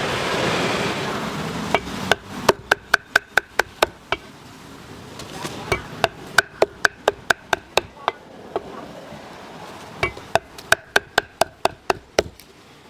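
Cleaver chopping on a wooden chopping block in three quick runs of strokes, about four to five a second, typical of a vendor cutting up grilled chicken.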